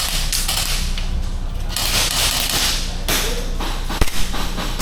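Two sharp cracks close together about four seconds in, typical of an airsoft gun firing, over bursts of hiss and a steady low hum.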